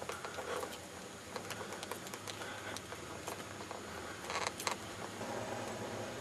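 Faint ambience with scattered small clicks and brief scrapes of handling noise from a handheld camera carried on foot. About five seconds in, the background changes to a steadier faint hiss.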